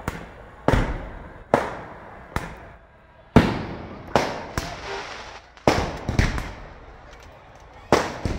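Firecrackers bursting in a rapid, irregular string of sharp bangs, roughly one to two a second, each trailing off in a short echo; the loudest bang comes about three and a half seconds in.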